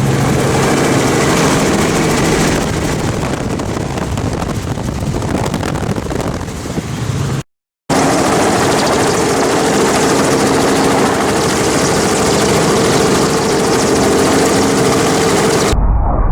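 Helicopter running steadily: an even engine-and-rotor hum over a loud rushing noise. The sound drops out for a moment about halfway through, and near the end it turns dull and low.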